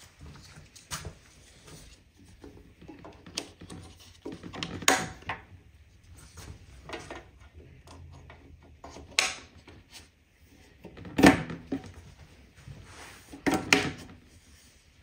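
Clicks and knocks of IKEA Maximera drawer parts being handled and fitted, with several sharp knocks a few seconds apart, the loudest about eleven seconds in.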